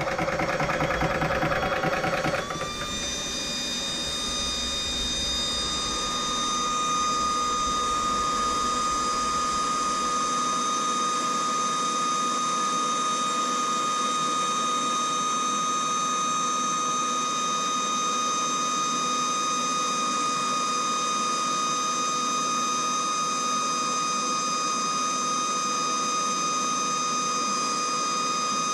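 Hatsan portable air compressor running steadily while filling a PCP air rifle. It rattles for the first couple of seconds, then about two and a half seconds in settles into an even, high whine.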